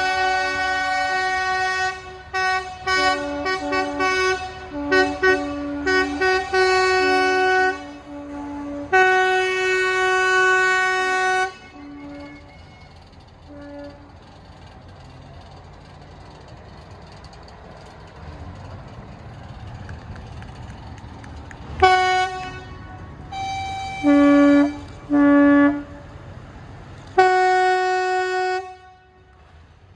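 Narrow-gauge diesel locomotive's two-tone horn sounding a long series of short and long blasts that switch between a lower and a higher note. After a lull with a low rumble, there are a few more short blasts, and a longer one near the end.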